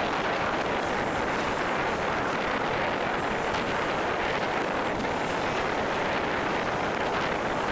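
Steady rush of wind on the microphone over the engine and tyre noise of a vehicle moving along a road at speed.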